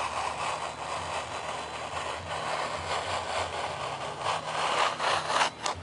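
Razor knife drawn through foam sheet in a run of rough scraping strokes, over a steady low hum.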